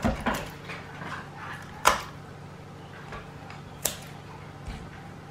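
Scissors snipping off the ends of tape and string: a few short, sharp snips spaced a second or two apart, over a faint low hum.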